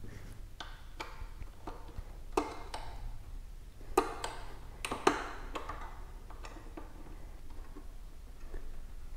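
Light clicks and taps of a hand tool and small metal parts while working on an e-bike's disc brake, with sharper knocks about two and a half, four and five seconds in.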